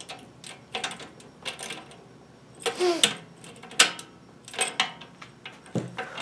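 Key turning in the Honeywell 5113 digital safe's hidden emergency lock: irregular metallic clicks and clunks as the locking bolts in the steel door move in, busiest in the middle seconds.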